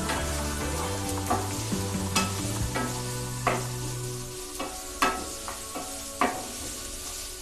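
Onions, chana dal, mustard seeds and curry leaves sizzling in oil in a pan while being stirred, with the spoon knocking against the pan every second or so.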